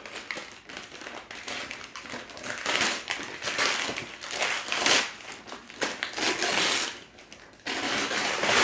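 Gift wrapping paper being torn off a boxed present and crumpled in the hands, a string of rips and rustles with a brief lull near the end.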